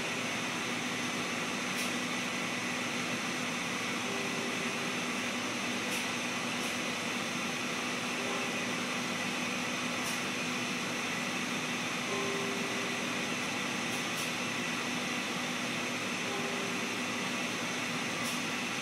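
Steady mechanical hum and hiss from an industrial plant's machinery and venting, with a constant low hum and a high whine running through it. A few faint short tones and light ticks come and go over it.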